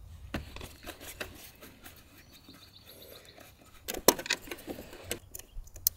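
Small clicks and taps of a screwdriver and wires against the metal terminal block and compartment of an air conditioner's electrical box, as the supply wires are undone. The sharpest click comes about four seconds in.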